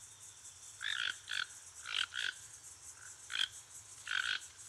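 Toucan calling: a series of short calls repeated every half second or so, some in quick pairs.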